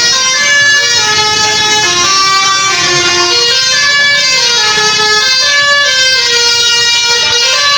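A bus's telolet basuri musical horn playing a tune: a run of loud held notes stepping up and down in pitch, several notes at times sounding together.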